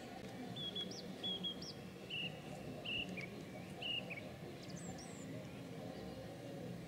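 A bird giving a string of short, high chirps, roughly one to two a second, with a couple of higher rising calls near the end, over steady low background noise.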